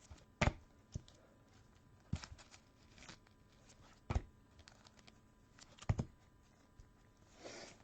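Trading cards being handled and set down on a pile one at a time, with a short sharp tap every second or so and a soft brushing sound near the end.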